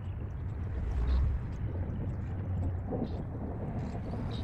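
Steady low outdoor rumble with a few faint, short high chirps.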